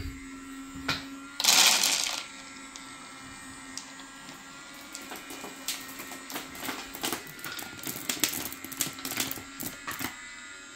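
Handful of fishing pellets and sweetcorn tipped into a bait boat's hopper with a brief rattling rush about a second and a half in, over the low steady hum of the bait spiral's motor. Later, scattered clicks and ticks as the auger feeds the pellets and corn out and they drop into the bucket below.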